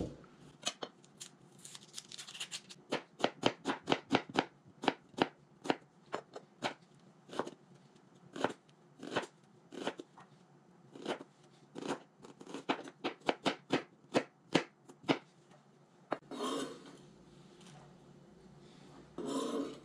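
Chef's knife dicing a red onion on a cutting board: a long, irregular run of quick sharp taps as the blade hits the board. Near the end come a couple of longer swishes as the knife scrapes the diced onion off the board into a bowl.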